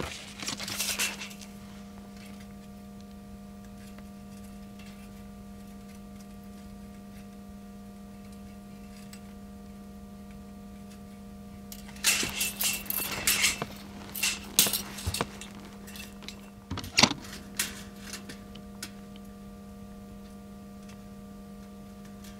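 Metal clinking and clattering as a long steel bar is handled against a steel loader bucket: a run of clinks past the middle, then one sharp clank a few seconds later, over a steady low hum.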